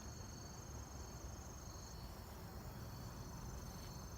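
Insects trilling steadily in a chorus, two continuous high-pitched trills at different pitches, over a low steady rumble.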